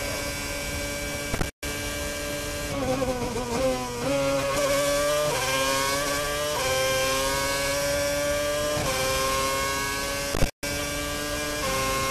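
Ferrari F10 Formula One car's 2.4-litre V8 at high revs: it brakes with a quick run of downshifts, the pitch falling and wavering, then accelerates out, the pitch climbing and dropping a little at each upshift. The sound cuts out for an instant twice.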